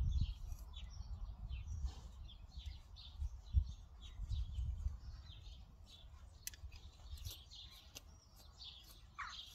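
Small birds chirping, many short calls throughout, over a low rumble that is strongest at the start and around four seconds in.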